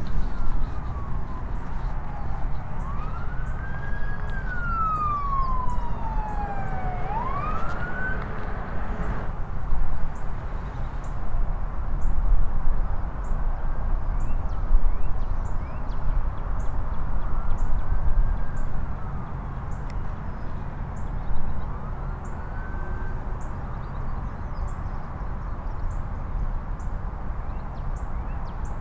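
Police car sirens wailing, their pitch sweeping slowly up and down, with more than one overlapping at first. They are loudest for about the first nine seconds, then fainter and broken, over a steady low rumble.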